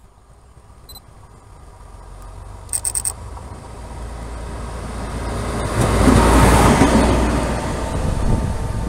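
DE6400 diesel-electric locomotive running light, approaching and passing close by. The engine's low rumble and the wheel and rail noise build steadily and are loudest about six to seven seconds in, then ease a little.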